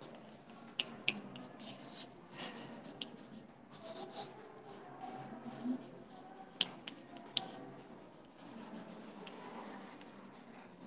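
Chalk writing on a blackboard: short scratchy strokes, with a few sharp taps of the chalk against the board.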